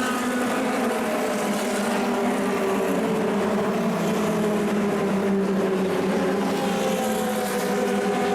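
Engine of a 1960s cigar-shaped formula race car running steadily, its pitch drifting slightly up and down.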